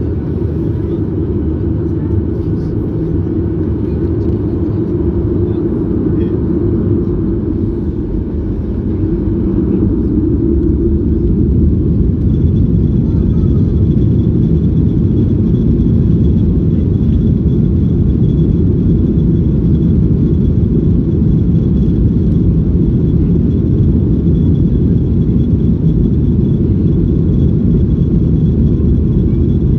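Boeing 737-800's CFM56-7B turbofan engines heard from inside the cabin over the wing as they spool up to takeoff thrust for the takeoff roll. A steady low engine noise grows louder about ten seconds in, and a thin high whine joins it a couple of seconds later and then holds.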